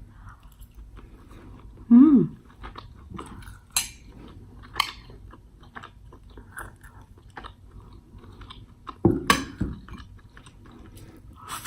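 Close-miked chewing of food, with soft wet mouth clicks and smacks throughout. There are two louder moments, about two and nine seconds in, each with a short hum.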